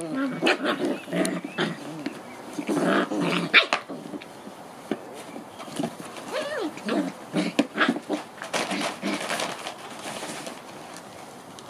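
Seven-week-old White Swiss Shepherd puppies play-fighting, with short growls and high yaps coming in quick, uneven bursts. The calls are busiest in the first few seconds and thin out near the end.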